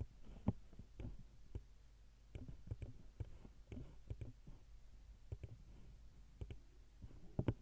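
Computer mouse clicking, a dozen or so sharp clicks at uneven intervals, over a faint low steady hum.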